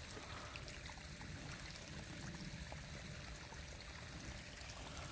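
Snowmelt stream flowing out of a forest: a faint, steady rush of running water.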